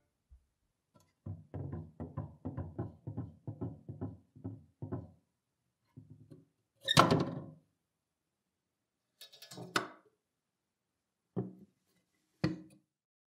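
Rusty cast iron Trick Dog mechanical coin bank being worked and handled, its mechanism failing to make the dog perform: a loud clank about seven seconds in, a rattling clunk near ten seconds, and two short knocks near the end. Before that comes a run of about a dozen short, evenly spaced low notes.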